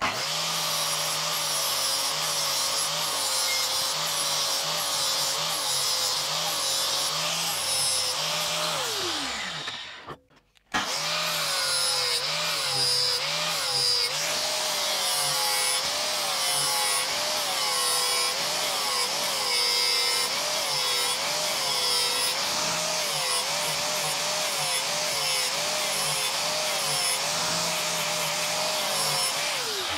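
Makita angle grinder with a flap disc grinding the cutting edge of a steel lawn mower blade, the motor's pitch dipping over and over as the disc bites into the metal. It winds down about nine seconds in, stops briefly, starts again and winds down near the end.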